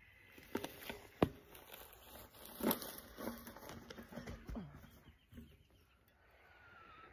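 Sharp knocks and scuffs of a 29-inch mountain unicycle and shoes on dry, gravelly dirt as a rider mounts it and comes off again. The loudest knock comes about a second in, and the sounds thin out near the end.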